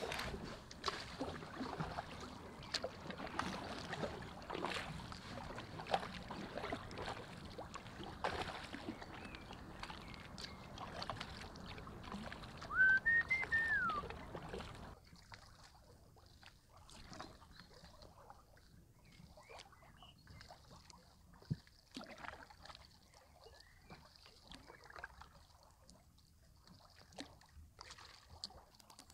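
Canoe paddle strokes pulling through calm water, about one stroke a second, with splashes and drips from the blade. About halfway a brief rising-and-falling whistled call is the loudest sound. In the second half everything turns much quieter, with only faint drips and light knocks.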